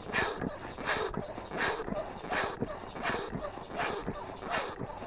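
Foot pump squeaking and wheezing with each stroke as it inflates an air mattress, about three strokes every two seconds in a steady rhythm.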